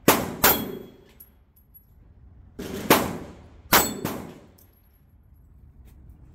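Four pistol shots, two in quick succession at the start and two more about three seconds in. The hits clang and ring off steel dueling-tree plates.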